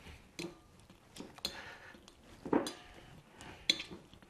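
Metal masher pressed repeatedly into avocado in a glass bowl: irregular clinks and taps of the masher against the glass, about seven in all.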